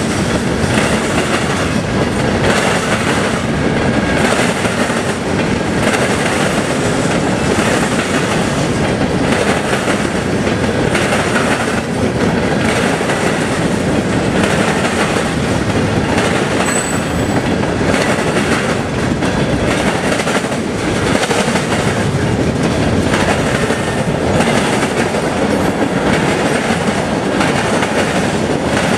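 CSX freight train's cars rolling past, steel wheels clacking over the rail joints in a steady, regular rhythm under a continuous loud rumble.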